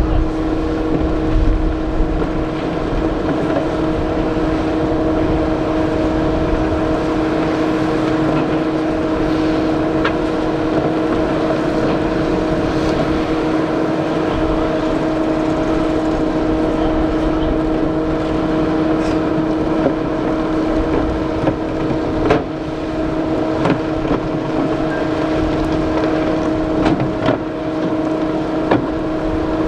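Motors running steadily: a constant pitched hum over a rumbling haze, with a few sharp knocks in the last third.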